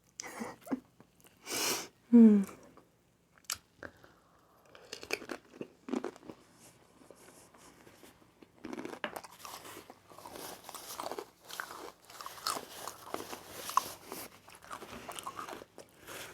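Close-miked messy chewing and crunching of a mouthful of aguachile verde, with irregular wet clicks and crackles from about halfway on. There is a short low voice sound that falls in pitch about two seconds in.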